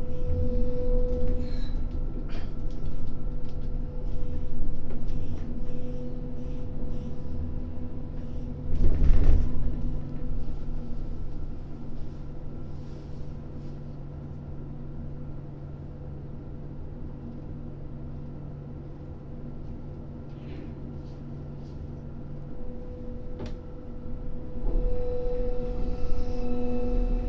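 Crane machinery humming steadily, heard inside the operator's cab, with a few steady whining tones over a low rumble. A loud knock comes about nine seconds in. Near the end the whine and rumble grow louder as the grab bucket is lifted and swung.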